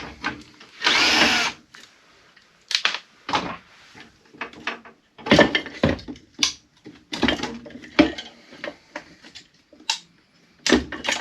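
Power drill running in one short burst about a second in, then a string of scattered clicks and knocks as the furnace is taken apart.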